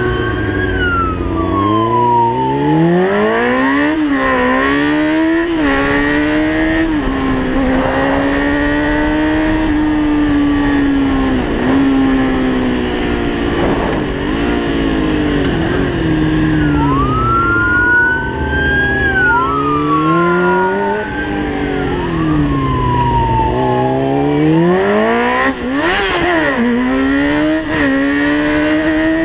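Motorcycle engine ridden hard, revving up and dropping back again and again as the rider accelerates and shifts through the gears.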